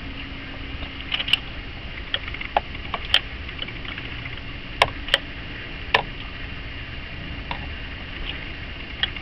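Socket ratchet clicking as it tightens a new reverse light switch into a manual transaxle: sharp, separate clicks at irregular spacing, some in quick pairs.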